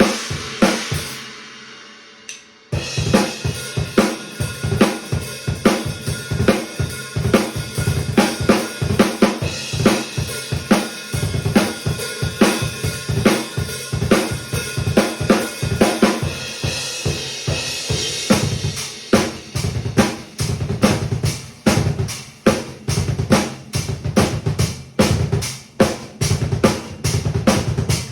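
Acoustic drum kit played: a crash fading out, a short pause, then a steady groove of kick, snare and hi-hat strokes with cymbals, running on without a break.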